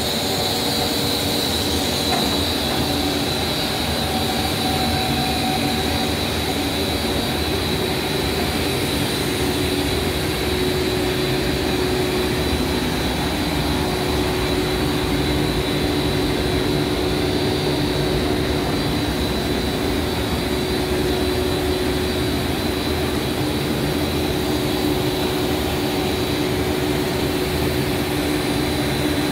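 Steady machine drone of an HDPE pipe extrusion line running, with an even high whine and a lower hum that grows stronger about ten seconds in.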